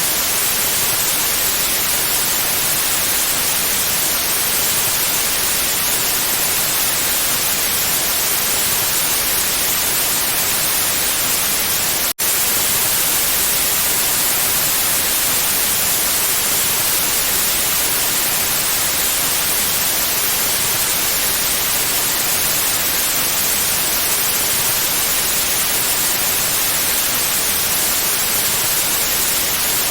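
Steady white noise, an even hiss with no tones or rhythm, briefly cut by a split-second dropout about twelve seconds in.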